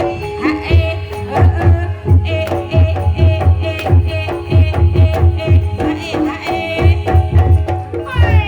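Javanese Banyumasan gamelan music for Ebeg: kendang hand drums beating a dense, quick rhythm under metallic gamelan keys ringing steady notes, with a wavering high melody line above.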